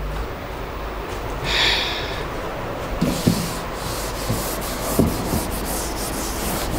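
Whiteboard duster rubbing across a whiteboard, erasing marker writing: a short first swipe, then repeated rubbing strokes through the second half.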